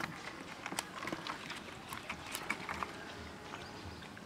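A hand groping in a shallow hole of muddy water, making small irregular splashes and squelches of wet mud.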